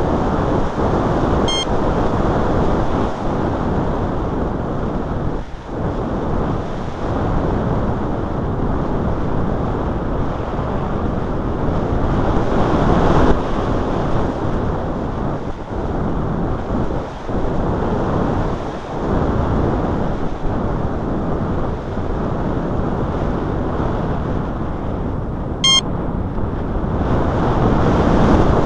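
Wind rushing over the microphone, steady and loud, with two short electronic beeps, one about a second and a half in and one near the end.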